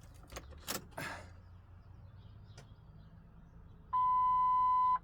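Car keys clicking and rattling in the ignition of a Ford Focus ST as it is switched on, then a single steady electronic beep from the car's warning chime, lasting about a second and cutting off sharply near the end.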